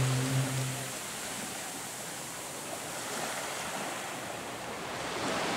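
Small waves washing up on a sandy beach: a steady hiss of surf, growing a little louder near the end.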